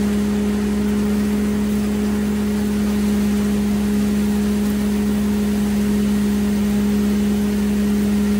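International Harvester hammer mill mixer running steadily under power, with the engine driving it, making an even, unchanging hum.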